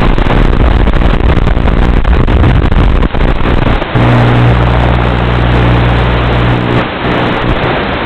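Loud hiss and buzz of static from an analog FPV video receiver, with a steady low hum from about halfway in until near the end, as the quad's video signal breaks up.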